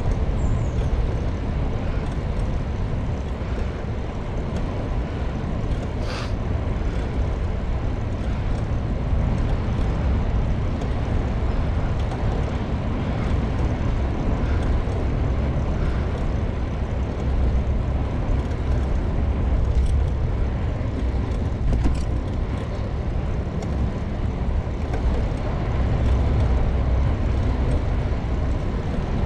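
Steady wind noise on the microphone and road noise from a moving bicycle, with a sharp click about six seconds in and a couple of fainter ones later.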